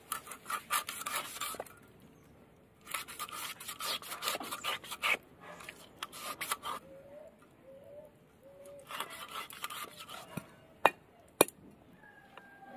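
Raw chicken being cut on a bonti, a fixed curved blade: bursts of rough scraping and slicing as pieces are pushed against the edge, with two sharp clicks a little before the end.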